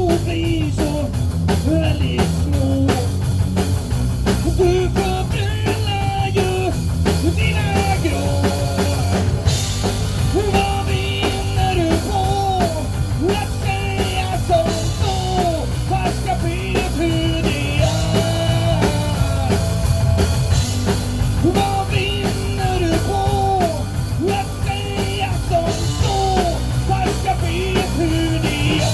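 Rock band music: a drum kit and bass keep a steady beat under a melodic lead line that moves from note to note.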